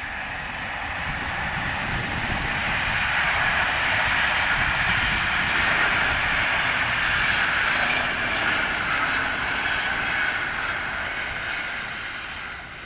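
Locomotive-hauled passenger train rolling past on an electrified line, a steady rushing rumble of wheels and coaches that swells and then fades near the end.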